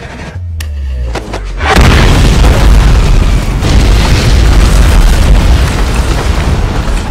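Film sound effect of a bomb explosion. A low rumble builds, then a heavy blast hits about a second and a half in, followed by a long, loud spell of burning and flying debris.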